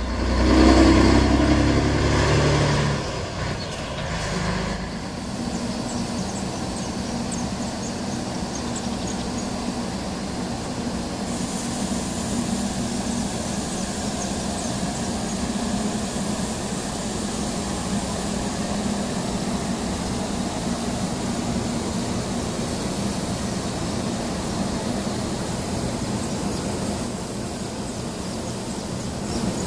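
A Scania 113 truck's diesel engine running loudly as it drives past, fading away over a few seconds. Then a steady mechanical hum with a noise haze from the grain-loading machinery, joined about eleven seconds in by a steady high hiss.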